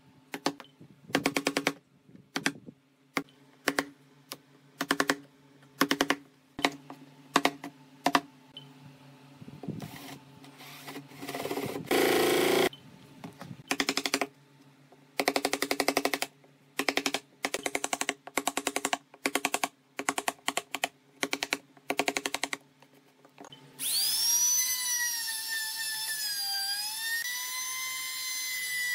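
A wooden mallet repeatedly strikes a wood chisel cutting into a wooden board, giving sharp knocks with a short ring, roughly one or two a second. Near the end a handheld trim router starts up and runs with a steady high whine that wavers in pitch as it cuts.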